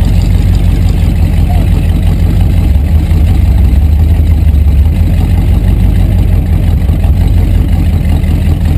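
Rat rod's exposed engine running at idle with a steady, loud low rumble, heard from inside the cab.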